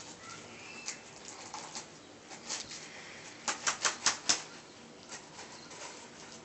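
Ragdoll kittens' claws scratching and scrabbling on a slick satin-like comforter as they play-fight. There are scattered light scratches, then a quick run of about five sharp scratches a little past the middle.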